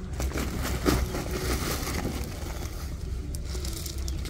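Crushed stone being handled and set into bare earth, with a woven plastic sack rustling: irregular crunching, scraping and crinkling, with a sharper knock about a second in.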